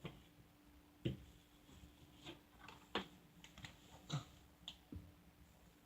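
A few faint, scattered clicks and taps, the clearest about a second in and about three seconds in, over a faint steady hum.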